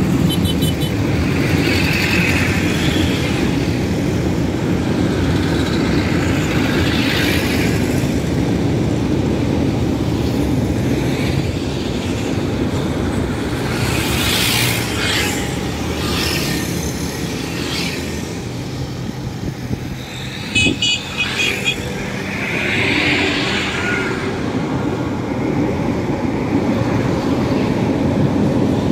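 An LRTA Class 1200 light-rail train runs across an elevated concrete viaduct, a steady rumble mixed with surrounding city traffic noise. A few short high beeps cut in about two-thirds of the way through.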